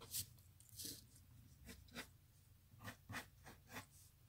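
Faint pencil strokes on paper, several short scratches spread unevenly across the few seconds as lines are sketched.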